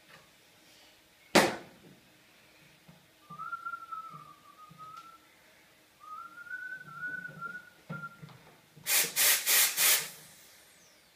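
A person whistling two short wavering phrases. There is a sharp click about a second in, and four quick, loud bursts of noise come near the end.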